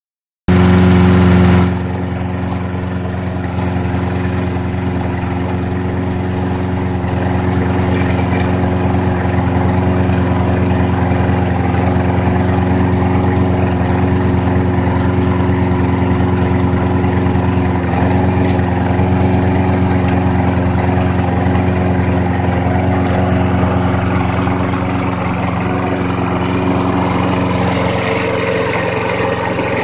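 Lawn mower's small engine running at a steady speed on its rebuilt carburetor, louder for the first second, with a slight change in tone near the end.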